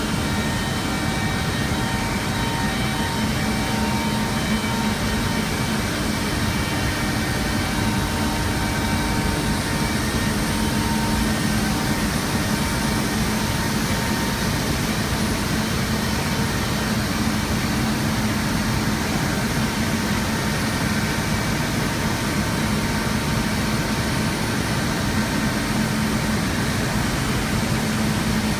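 Paper machine running at production speed, about 810 m/min making 80 gsm paper: loud, steady machine noise with a low hum and several faint steady whines.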